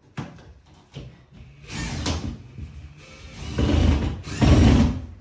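Scraping and grating of a metal mounting rail being worked into a plasterboard opening, a few short rough strokes that grow louder, the loudest two near the end.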